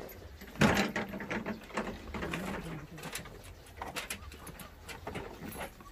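Knocks and clatter of plastic crates and gear being handled on a small pickup truck's bed, the loudest a thump about half a second in. Under it runs a low, drawn-out animal call.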